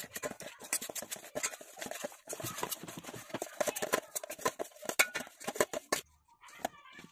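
Metal spoon scraping and clinking against a stainless steel bowl while mixing a thick spice-and-oil masala paste: rapid, irregular clicks and scrapes that stop about six seconds in.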